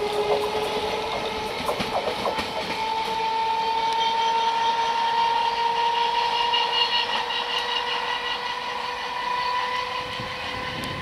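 Electric multiple unit local train approaching, giving a steady electric whine that slowly rises in pitch over the rumble of its wheels on the rails.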